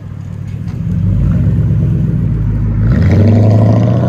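A 2000 Mercury Grand Marquis's 4.6-litre V8, with a true dual exhaust and Vibrant bottle resonators, pulling away and accelerating. The deep exhaust note swells about a second in and rises in pitch near the end, staying clean rather than loud.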